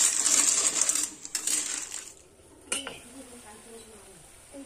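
Metal spatula stirring river snails in their shells in a steel wok: a dense clatter of shells clinking against each other and the pan, which stops about two seconds in, followed by a single clink a little later.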